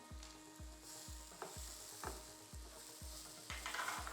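Pumpkin and cucumber seeds sizzling faintly in a frying pan while being stirred, with a couple of sharp clicks of the spatula against the pan and a louder stretch of stirring near the end.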